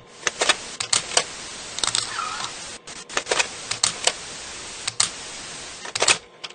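Camera shutter clicks at an irregular pace, often in quick pairs, over a steady hiss.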